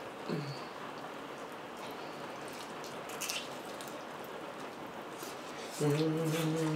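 Steady hiss of hard rain falling outside. A short click about three seconds in, and near the end a person starts humming, which is louder than the rain.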